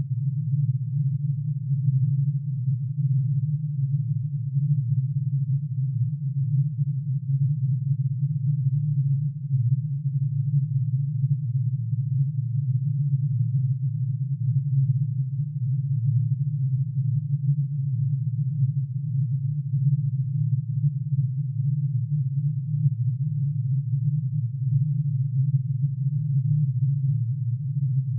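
Synthesised sonification of plutonium's atomic emission spectrum: many sine tones, one for each spectral line, summed into a steady low, dense hum with a fluttering, beating texture that does not change.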